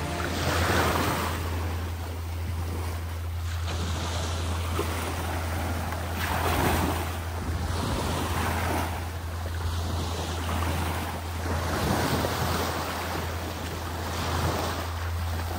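Small waves washing onto a sandy beach, the surf swelling and falling every few seconds, with a steady low wind rumble on the microphone.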